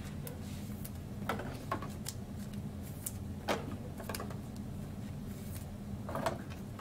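Trading cards being handled and slid into card sleeves: scattered soft rustles and clicks over a steady low hum.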